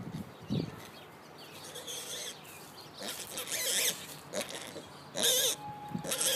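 A Juliana mini piglet giving several short, high squeals, the loudest a little after five seconds in.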